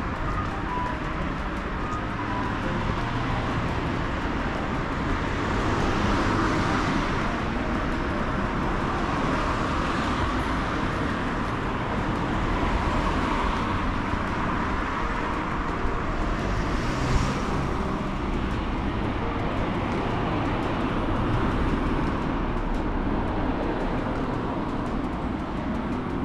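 Steady city road traffic, with cars passing one after another every few seconds.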